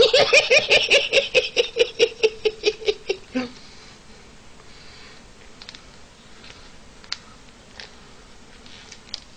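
A man's hearty belly laugh, a rapid run of 'ha-ha-ha' pulses about five a second, that stops about three and a half seconds in. After it, only a few faint clicks and taps.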